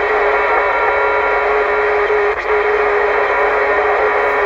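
CB radio receiving a keyed-up carrier with no voice on it: a steady hum-like tone over loud static from the radio's speaker.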